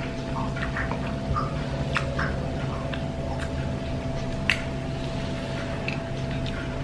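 Scattered light clicks and clinks of eating a meal with utensils and dishes, with one sharper tick about four and a half seconds in, over a steady low hum.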